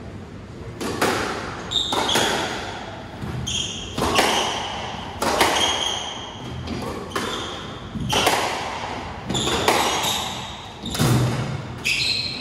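Squash rally: the ball cracks off rackets and the walls about once a second, each hit ringing in the enclosed court, with short high squeaks of shoes on the wooden floor between the hits.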